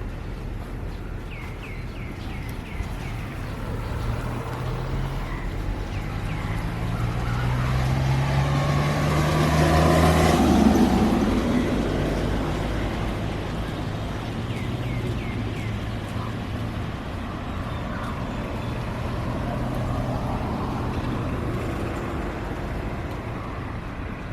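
A motor vehicle passing by: its engine note swells to a peak a little under halfway through and then fades away, over a steady hiss, with a second, weaker swell near the end. A few short bird chirps come in early on and again later.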